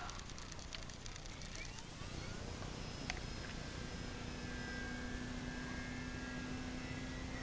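Faint steady whine of a radio-controlled electric model glider's motor, setting in a few seconds in, over low wind rumble on the microphone.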